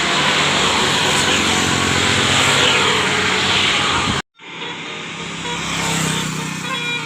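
Tour bus going by close up, a loud steady rush of engine and road noise. It cuts off abruptly about four seconds in and picks up again quieter on another bus, with faint tones of a multi-note telolet horn starting near the end.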